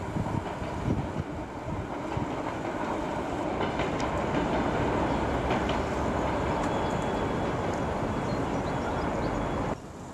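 Electric multiple-unit train passing, a steady rumble of wheels on the rails that cuts off suddenly near the end.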